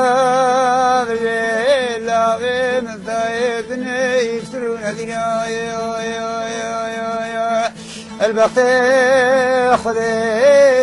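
Middle Eastern-style music: a male voice sings a high, ornamented melody with wavering held notes and slides over a steady low drone. There is a short break about eight seconds in, then the melody resumes.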